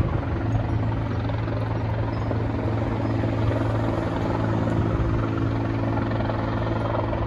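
Military helicopter hovering, its rotor and engine making a steady, unchanging drone.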